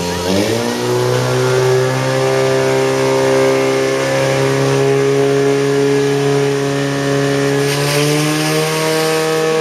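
Portable fire pump's engine revving up to full throttle in the first second, then running steadily at high revs while it drives water through the hoses. Its pitch steps up slightly once more near the end.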